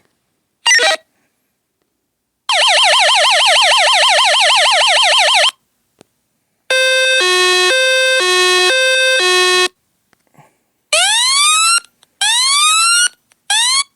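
Active911 pager-app alert tones played one after another, all electronic siren-style: first a rapid up-and-down yelp for about three seconds, then a two-pitch hi-lo tone for about three seconds, then near the end three short rising whoops.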